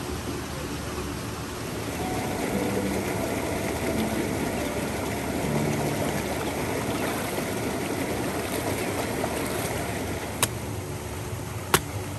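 Running water of a stream, a steady rushing hiss, with two sharp clicks near the end.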